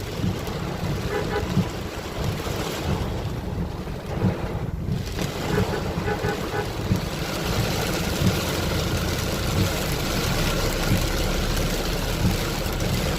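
Ten-wheel truck's diesel engine running while it drives through a rainstorm, with rain and wind noise on the truck that grow heavier about halfway through.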